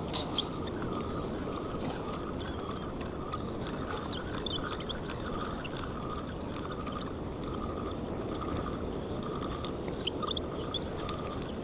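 An old fishing reel being cranked, squeaking in a quick even rhythm of about three to four high squeaks a second as the handle turns.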